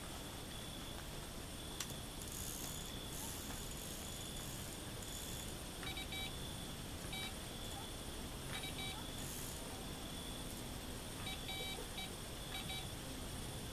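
Electronic carp bite alarm giving short single and double beeps, a few seconds apart, with a quick run of beeps near the end: the alarm registering line movement on the rod. Insects chirr steadily underneath.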